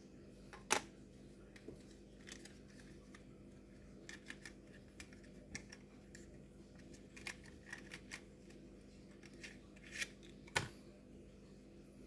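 Scattered small clicks and taps from hands handling the parts of an open laptop. Two sharper clicks stand out, one about a second in and one near the end.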